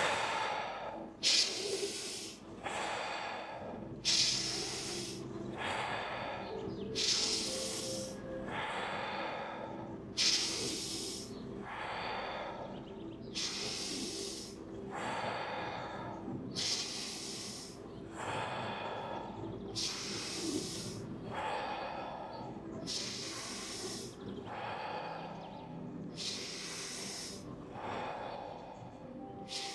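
A person breathing audibly and rhythmically in a breathing exercise, the 'fire' breathing round. Each cycle is a strong breath followed by a weaker one, about one cycle every three seconds, over soft background music.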